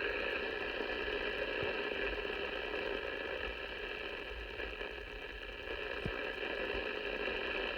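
Steady static hiss from a Cobra 29XLR CB radio's speaker on an empty channel, with faint steady tones in the noise.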